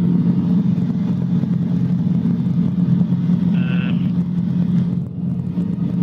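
Cabri G2 helicopter's piston engine and rotors running steadily on the ground, a constant drone heard through the headset intercom. A short high tone sounds about three and a half seconds in.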